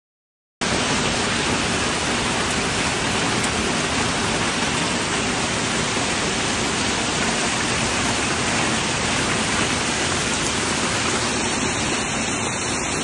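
Heavy hail pouring down onto grass and bare ground, a steady, dense hiss of countless hailstones. It cuts in abruptly about half a second in, after silence.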